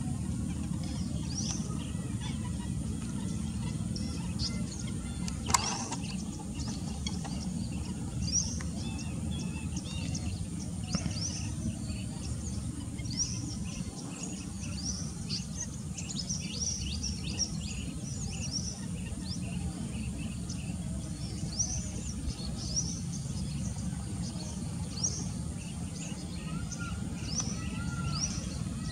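Many small birds chirping with short, high calls throughout, over a steady low rumble, with one sharp click about five and a half seconds in and a few lower calls near the end.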